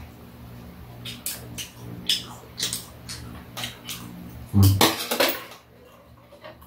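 Eating at the table: metal chopsticks clicking against a stainless pan and dishes, with crisp chewing of fried rice-paper rolls. One louder burst of sound comes about four and a half seconds in.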